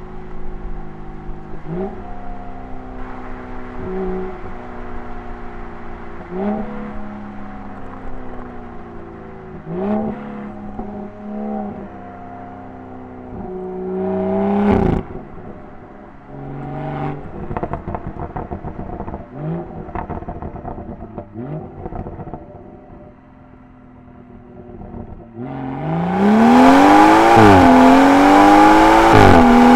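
BMW M340i's turbocharged 3.0-litre B58 straight-six through its M Performance exhaust, driven with short bursts of throttle and lifts, the revs rising and dropping several times. Near the end it goes to full throttle and gets much louder, its pitch climbing and falling back sharply a few times as it shifts up.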